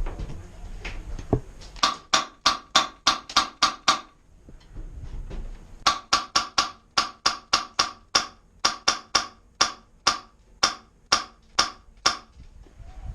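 Airsoft gun firing rapid single shots, about four sharp cracks a second, in two strings. The first is a short burst of about nine shots; after a pause of about two seconds, a longer run of about two dozen follows.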